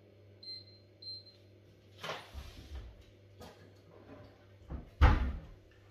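Induction hob touch controls beeping twice, short high beeps, as the hob is switched on. Then a kitchen cabinet door opening, with rustling and clicks as things inside are moved, and a sharp knock about five seconds in, the loudest sound.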